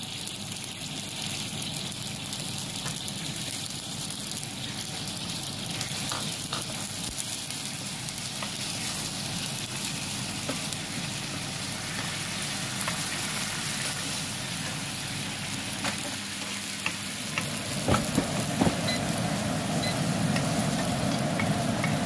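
Honey syrup with rose buds bubbling in a nonstick frying pan while it is stirred with a wooden spatula, which clicks against the pan a few times. The bubbling grows louder near the end as the syrup comes to a fuller boil.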